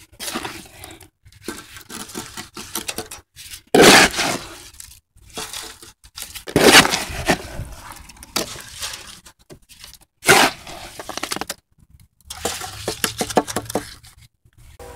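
Concrete mix being scraped and packed into a wooden 2x4 form: irregular gritty scraping and crunching, with louder bursts about four, seven and ten seconds in.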